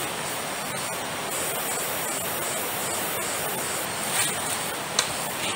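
Heavy rain falling steadily on the forest canopy and leaf litter, a dense even hiss, with a sharp tap about five seconds in.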